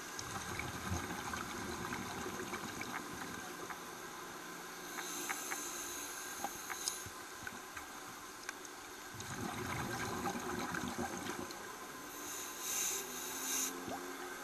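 Scuba diver breathing through a regulator underwater: exhaled bubbles rumble and gurgle, then a short hiss of inhaling follows, and the cycle comes round twice.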